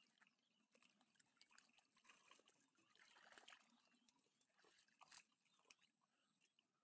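Near silence, with faint sloshing and squelching of hands groping through mud in shallow water.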